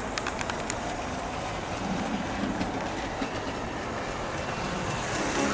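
Bachmann S&D 7F OO gauge model steam locomotive running light round the layout track: a steady mechanical running noise from its motor and wheels on the rails, with a few clicks near the start.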